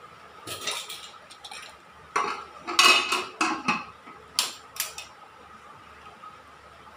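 Metal pressure cooker lid being fitted and closed: a series of sharp metal clanks and scrapes, loudest about three seconds in, stopping about five seconds in.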